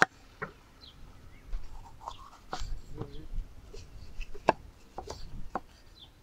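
Chef's knife slicing a bell pepper into strips on a wooden chopping board: a run of irregular sharp knocks as the blade strikes the board, the loudest right at the start and about four and a half seconds in.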